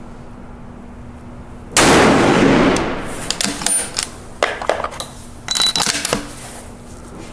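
A rifle shot from a precision benchrest rifle about two seconds in, dying away over about a second. Then a run of sharp metallic clicks and clinks, typical of the bolt being worked and the spent case coming out.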